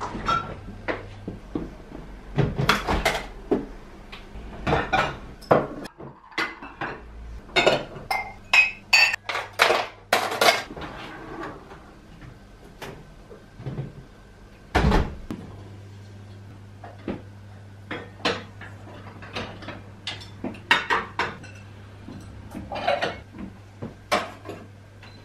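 Dishes and cutlery clinking and knocking in many irregular sharp strokes as they are handled, thickest in the first half, over a low steady hum.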